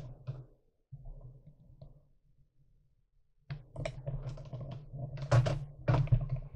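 Handling noise from a hand-held camera: faint rubbing and a few small clicks, a short lull, then a quick string of clicks and knocks, the loudest two about five and six seconds in.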